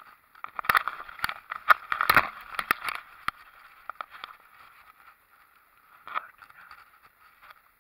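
Handling noise: fabric and a cord rubbing and knocking against the microphone, a dense flurry of scrapes and clicks for the first three seconds, then a few scattered knocks.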